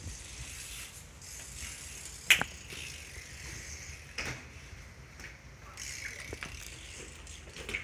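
BMX bike being ridden, its rear hub's freewheel ratchet clicking as it coasts, with three sharp knocks, the loudest a little over two seconds in, as the bike hits the ground.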